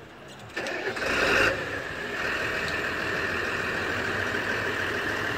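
Tractor diesel engine starting about half a second in, briefly louder as it catches, then idling steadily.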